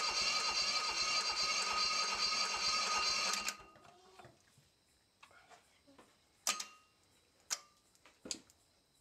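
Restored Bobcat M611 engine, air-cooled, running steadily with an even firing beat, then shutting off abruptly about three and a half seconds in. A few sharp metallic clicks and knocks follow as hands work on the stopped engine.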